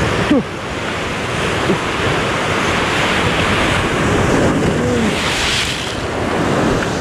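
Sea surf breaking and washing over shoreline rocks in a steady loud rush, with wind buffeting the microphone.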